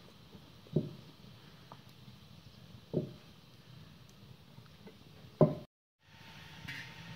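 A wooden rolling pin knocking dully on a wooden board while lavash dough is rolled out, three knocks about two seconds apart, the last the loudest. Near the end the sound drops out briefly.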